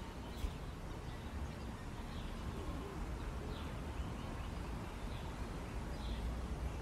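Quiet forest ambience: a steady low hiss and rumble with several faint, short, falling bird chirps spread through it.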